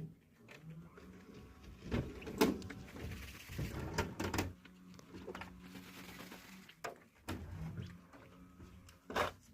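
Quail giving a low, droning purr in stretches while dust bathing, broken by sharp scratches and rustles as it flicks dust.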